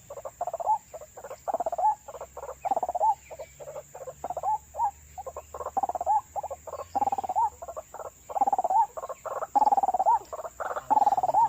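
White-breasted waterhen calling: a long run of short, croaking notes, several a second, many of them rising and falling in pitch.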